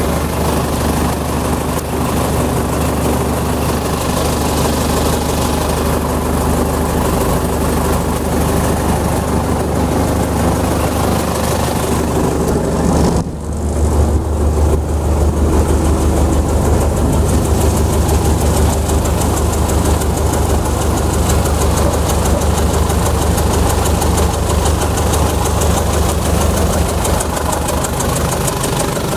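Heavy construction machine's engine running steadily at close range, a continuous low hum. About thirteen seconds in the level dips briefly, and the low hum then comes back stronger.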